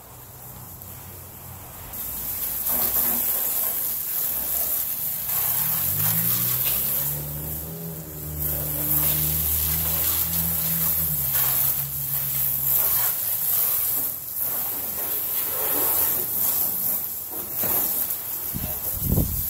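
Water spraying from a garden hose nozzle onto a car's body: a steady hiss of spray and spatter that starts about two seconds in. A low engine-like hum is heard in the middle.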